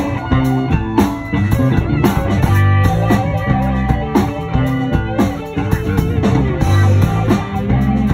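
A band playing: guitar over a stepping bass line and a drum kit keeping a steady beat.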